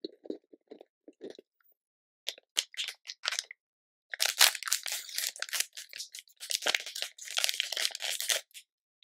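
Soft lip smacks in the first second or so, then the plastic wrapper of a Super Kontik chocolate-coated marshmallow biscuit being handled and pulled open. It crinkles in short crackles and then in two long, dense stretches of crinkling, the loudest part.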